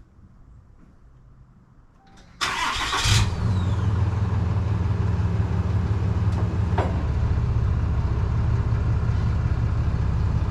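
A 2019 Ram 2500's 6.7-litre Cummins inline-six turbodiesel is cranked by the starter and fires about two seconds in, then settles into a steady diesel idle. A single sharp click comes a few seconds into the idle.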